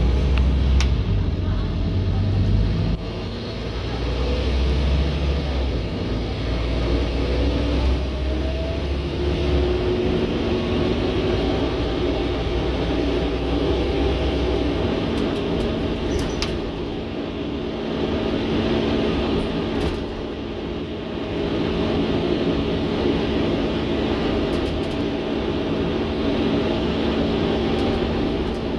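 Scania N230UD OmniCity double-decker bus heard from inside while driving: a deep diesel drone that gives way about ten seconds in to a higher, steady engine hum over road noise, with a few short clicks and rattles. The uploader calls the bus a tired beast.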